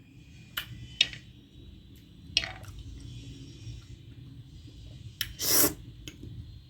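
Close-up eating sounds: a few short sharp mouth clicks and one louder, longer wet squish about five and a half seconds in, as orange segments are chewed.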